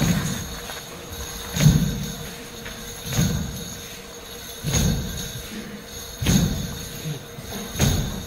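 Slow, even drum beats, six strokes about a second and a half apart, over a steady ringing tone.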